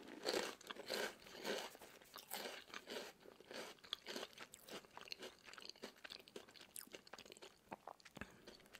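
Close-miked chewing of crunchy Lay's potato chips: irregular crunches that are loudest in the first couple of seconds, then settle into quieter, finer crackling as the chips are chewed down.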